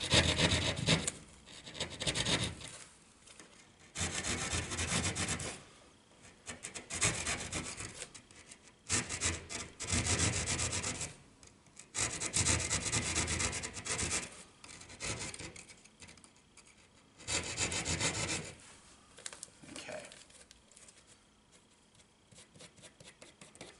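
Hand drywall jab saw sawing through drywall in short bursts of quick back-and-forth strokes, with brief pauses between bursts, as small notches are cut at the sides of an electrical box opening. The sawing stops a few seconds before the end.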